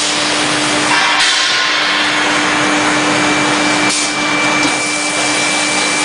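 Hot forging press line running: a loud, steady hiss with a constant hum, with light knocks about one and four seconds in.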